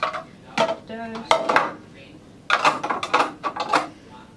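Dishes and utensils clattering and clinking in several quick bursts as they are set down and put back in place, one knock ringing briefly about a second in.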